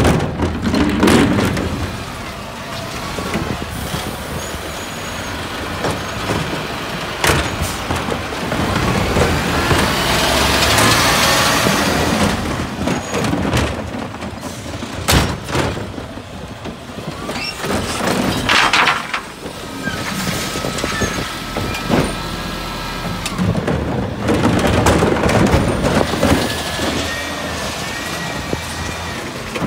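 Refuse lorry running in the street, with sharp knocks and clatters of plastic wheelie bins being wheeled over paving and handled at the truck.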